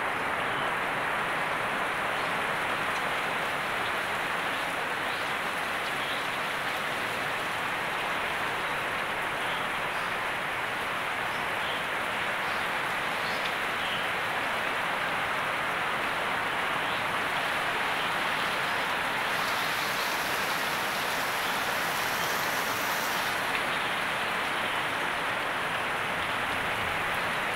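Heavy rain pouring steadily onto broad leaves and plants, a dense, even patter with no break.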